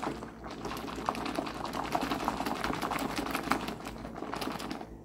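A hand swishing and squeezing soapy water in a glass bowl, sloshing and splashing with many small crackles and pops as it works up a thick lather, stopping near the end.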